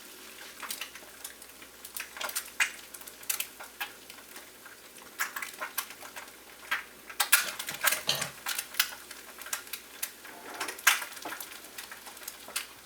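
Eggs frying in hot oil in a pan, with irregular crackles and pops of spitting oil.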